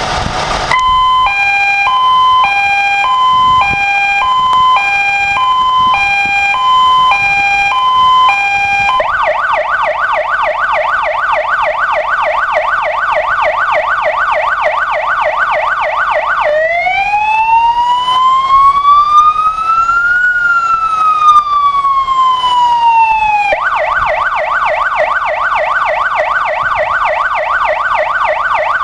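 Star 1142 fire engine's siren cycling through its tones: a two-tone hi-lo alternating about once a second, then from about nine seconds in a fast warble sweeping about four times a second, one slow rise and fall in pitch from about sixteen seconds in, and the fast warble again from about twenty-three seconds in.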